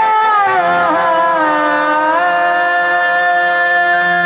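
Live music over a PA: a man sings a long wavering melodic line for about the first two seconds, then the accompaniment holds a steady chord.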